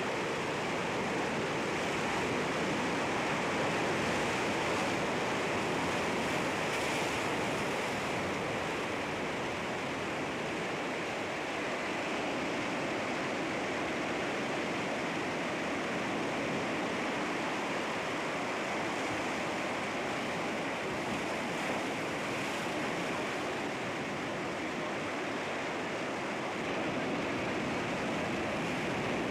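Sea waves breaking on rocks: a steady wash of surf, swelling slightly now and then.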